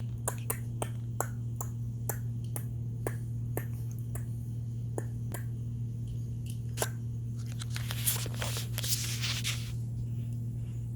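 A steady low hum with sharp clicks over it, about three a second for the first three or four seconds, then scattered; a short hissing, crackling rustle a little before the end.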